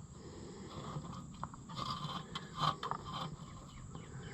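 Faint, irregular scraping and crunching with a few clicks: rust sediment being dug out of an International LB gas engine's block through its freeze-plug hole.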